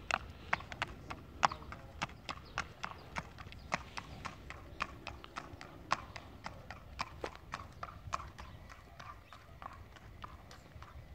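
A thoroughbred colt's hooves clip-clopping on asphalt at a walk: a steady run of sharp hoof strikes, about three to four a second, growing fainter in the second half as the horse moves away.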